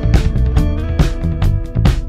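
Background music with a steady beat, led by guitar over drums.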